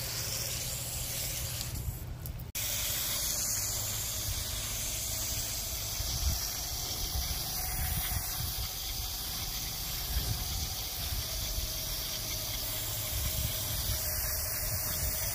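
Garden hose spray nozzle hissing steadily as it showers water over plants in pots, with a brief break about two and a half seconds in.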